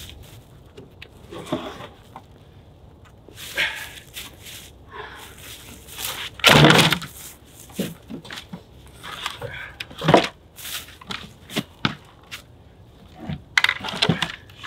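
Scattered wooden knocks and thuds of green logs being lifted off a hand cart and set down on a log stack, the heaviest thud about six and a half seconds in.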